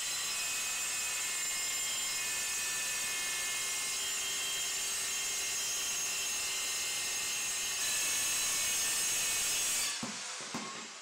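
Handheld circular saw running through a cut along a guide rail, a steady high whine with cutting noise that gets a little louder near the end of the cut. About ten seconds in the blade runs out of the work and the motor winds down with a falling whine, with a couple of knocks as the saw is lifted away.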